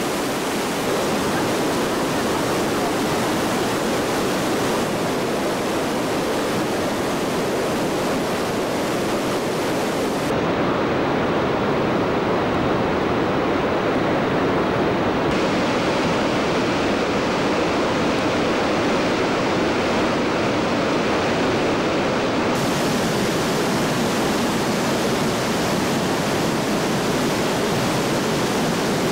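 Rushing, falling water of a waterfall: a steady, even rush of noise with no breaks, its tone growing duller and brighter a few times.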